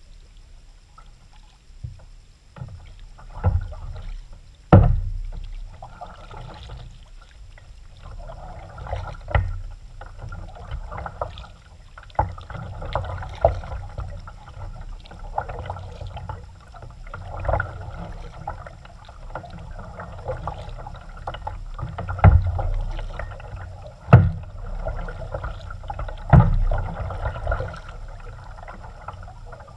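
Kayak paddling: water splashing and swishing off the paddle blades in irregular strokes, broken by about eight sharp knocks, the loudest about five seconds in and near the end.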